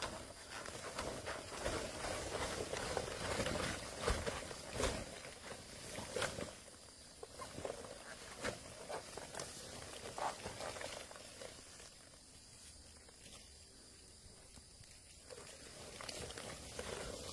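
Rustling and scattered sharp knocks and thuds of hand work in vegetation and soil, busiest over the first ten seconds or so, then quieter.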